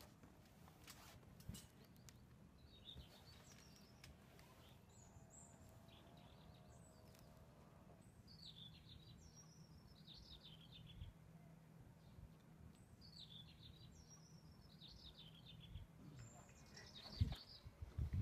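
Faint birdsong: short chirping phrases from small birds come and go over quiet outdoor background noise. Near the end, a few soft thumps.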